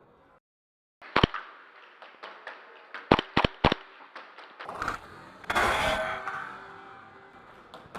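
Airsoft gunfire in an indoor close-quarters field: sharp single snaps, two about a second in and three quick ones around three seconds in, followed by a longer, louder rush of noise in the last few seconds.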